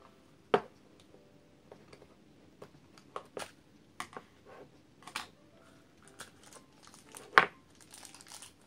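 Small plastic toy basket and its snap-on lid being handled: sharp plastic clicks and taps as the lid comes off and is set down on the table, the loudest about half a second in and near the end. A short crinkle of a wrapper near the end as a small toy is taken out.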